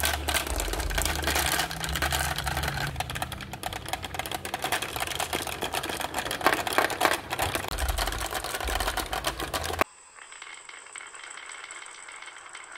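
Marbles rolling and clattering down a marble-run chute, a dense rapid rattle of clicks as they bounce off the baffles. About ten seconds in it stops abruptly, leaving a faint steady hiss with a thin high tone.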